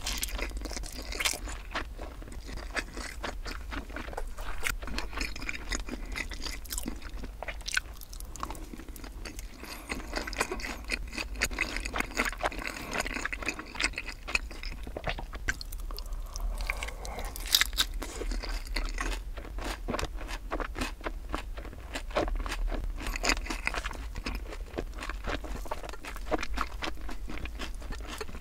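Chewing and crunching of sweet-spicy sauced fried chicken and rice, a steady run of small crunches and clicks.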